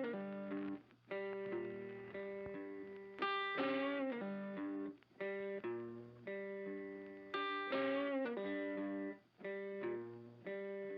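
Background blues music led by an electric guitar, plucked notes in repeating phrases.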